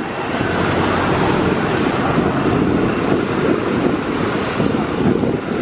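Steady jet engine noise from a Boeing 737-900ER's CFM56 turbofans as the airliner taxis along the runway.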